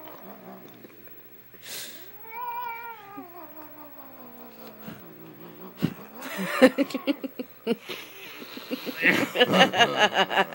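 Domestic cat yowling: one long drawn-out call that rises and falls about two seconds in, then from about six seconds a fast, stuttering run of loud pulsed yowls.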